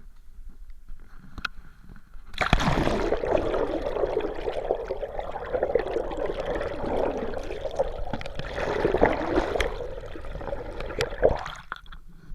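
Water rushing and gurgling loudly over a camera held underwater beside a moving sailing dinghy. It starts abruptly about two seconds in and drops away suddenly near the end.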